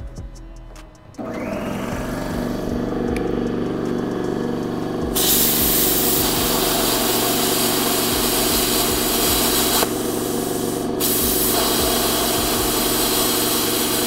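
Plasma cutter cutting steel: a steady machine hum starts about a second in, then a loud air hiss of the torch comes in about five seconds in, drops out for about a second near the ten-second mark, and resumes.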